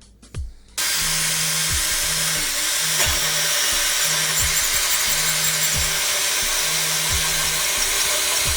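TOTAL P20S 20 V cordless drill driving a hole saw into plywood: the motor starts abruptly about a second in, and the drill and the saw teeth run steadily and loudly while cutting.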